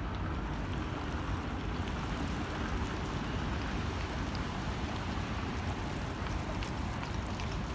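Steady wind rumble on the microphone mixed with outdoor road-traffic noise, with a few faint clicks near the end.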